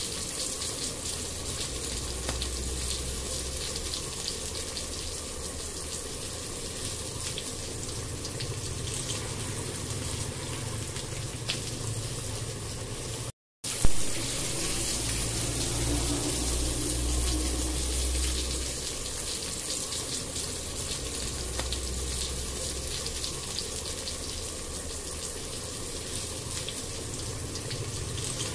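Chopped onion, garlic and ginger sizzling and crackling in hot oil in a nonstick pan, over a steady low hum. The sound cuts out for a moment about halfway through and returns with a brief knock.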